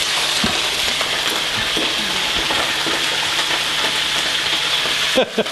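Chicken livers frying in a wok of hot oil: a steady, loud sizzle that drops off sharply near the end.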